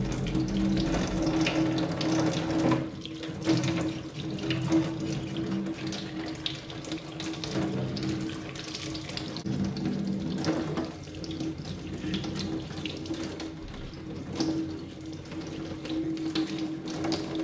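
Kitchen tap running into a stainless steel sink, the stream splashing over a carrot held under it, with a steady low tone under the water. Irregular short scrapes of a knife blade on the carrot cut through the running water.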